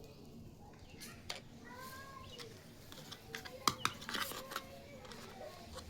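Small plastic toy kitchen pieces being handled during unboxing: scattered light clicks and taps, with a quick cluster of sharper clicks a little after the middle.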